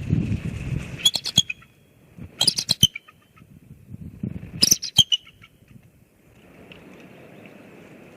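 Bald eagles calling: three short bursts of quick, high-pitched chattering notes a second or two apart. A low rumble fills the first second, and a steady faint hiss sets in near the end.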